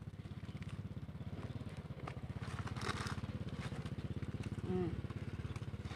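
A small engine running steadily, a low rumble with a fast even pulse. Over it come faint scratchy crumbling sounds of soil and dry leaf being pulled apart by hand, clearest about halfway through.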